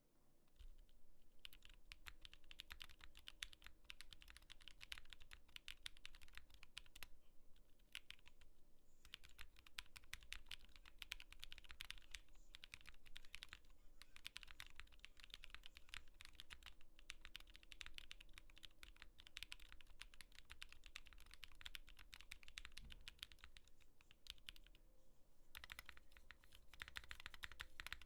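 Typing on a custom Voice 65 mechanical keyboard with Holy Water silent tactile switches (Zilent housings, lubed and filmed) in a polycarbonate plate with case and ESD foam: quiet, muted keystrokes in fast continuous runs, broken by a few short pauses.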